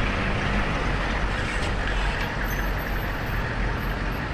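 Heavy vehicle running steadily: a deep engine rumble under an even hiss of running noise.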